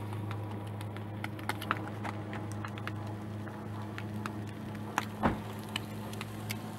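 Meat frying in a pan on a portable gas camp stove, with fat crackling and popping in short irregular clicks over a steady low hum. A louder knock comes about five seconds in.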